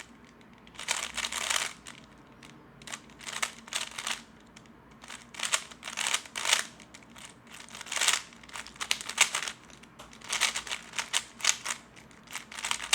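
Plastic 3x3 Rubik's Cube being turned fast during a speedsolve: quick runs of clicking, rasping layer turns with short pauses between them.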